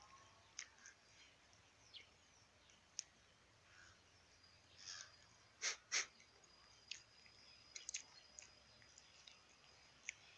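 Near silence, broken by scattered faint clicks and two short, louder noisy puffs close together a little past the middle, with a faint high steady tone in the second half.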